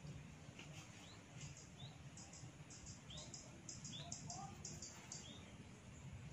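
Hair cracking: strands of hair pulled and twisted, giving about a dozen short, crisp crackles at an uneven pace, with a few faint short chirps among them.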